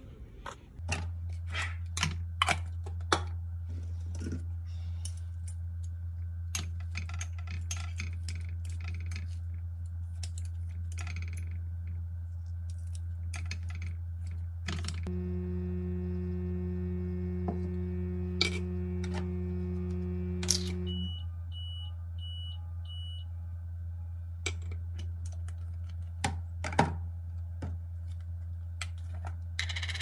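Steady low electrical hum with scattered clicks and taps of bowls, bottles and utensils being handled on a kitchen counter. Midway an appliance runs with a pitched hum for about six seconds, and when it cuts off four short high beeps follow.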